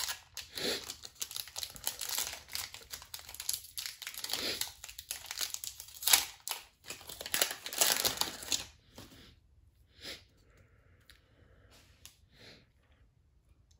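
Foil booster-pack wrapper being torn open and crinkled: a dense run of rustling for about nine seconds, then only faint handling sounds.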